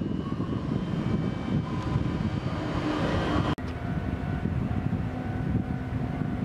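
Kintetsu 22600/22000-series limited express EMU standing at the platform, its onboard equipment giving a steady hum and whir. The sound breaks off for an instant about three and a half seconds in, then carries on with a steadier low hum.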